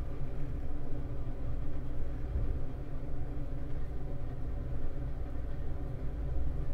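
A water pump pumping groundwater out of the house, running with a steady low hum.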